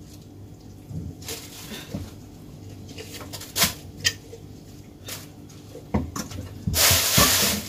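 Hands washing a raw whole chicken in a stainless steel sink: scattered wet slaps and knocks against the basin, then the tap runs for about a second near the end.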